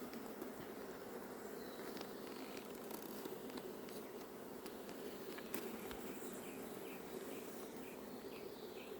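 Honeybees buzzing around the hive, a steady faint hum of many bees with a few small ticks.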